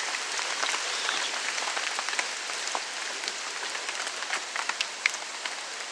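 Steady rain falling, an even hiss with many sharp individual drop ticks scattered throughout.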